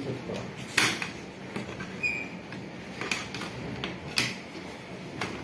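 Hands handling the opened all-in-one computer's metal chassis and parts, giving a series of sharp clicks and knocks, the loudest about a second in, with light handling noise between.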